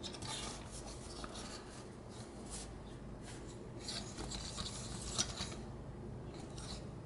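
Faint rubbing and scattered light clicks of hands handling a plastic transforming robot action figure, with one slightly sharper click about five seconds in.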